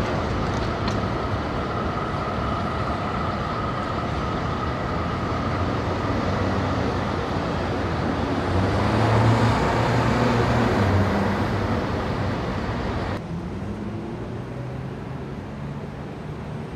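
Indian city street traffic: a steady mix of car, motorbike and auto-rickshaw engines with tyre noise, one vehicle passing close and loud a little past halfway. About thirteen seconds in the sound cuts abruptly to quieter traffic.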